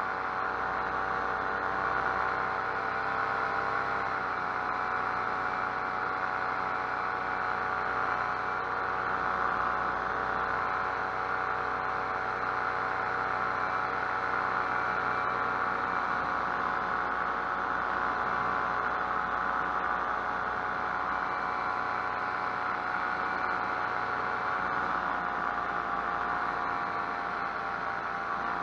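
Paramotor engine and propeller running steadily in flight, a constant droning hum that dips slightly in pitch about four seconds in and rises a little near the end as the throttle changes.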